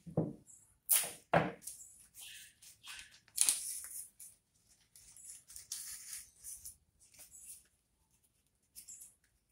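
Leaves and flower stems rustling as they are handled and pushed into the floral foam of an arrangement, with a few soft knocks in the first two seconds. The rustles are irregular and busiest in the first four seconds.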